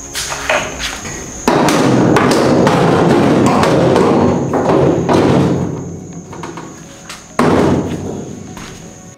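Kirkey aluminum racing seat being manoeuvred into a roll-caged truck cab, scraping and knocking against the cage tubes. A loud scrape starts suddenly about a second and a half in and runs for several seconds, and another sudden knock and scrape comes near the end.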